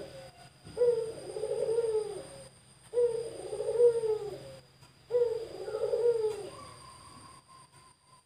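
Male puter dove (Barbary or ringneck dove) cooing: three long, arching coos in a row, each about two seconds long and about two seconds apart.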